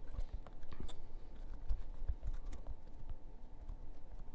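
Light, scattered taps and rubbing from hands squeezing and turning a rubber R/C car tire with a foam insert, mounted on its plastic wheel.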